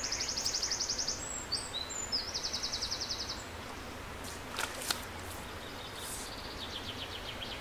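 A songbird singing fast, high trills of rapid repeated notes, two in the first three seconds and a fainter one near the end, over a steady wash of flowing river water. There is a brief sharp sound nearly five seconds in.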